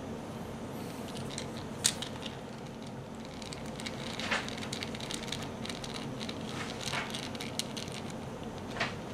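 Small scattered clicks and ticks of a Phillips screwdriver working tiny screws out of a Walkera V120D02 micro helicopter, the sharpest about two seconds in, over a steady faint background hum.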